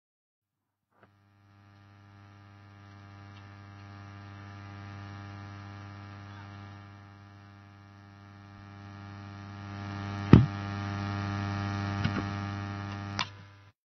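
Electrical mains hum on a live microphone line: a steady buzz that starts about a second in and swells and fades. A sharp knock, the loudest sound, comes about ten seconds in, and two softer clicks follow near the end, like the handheld microphone being handled.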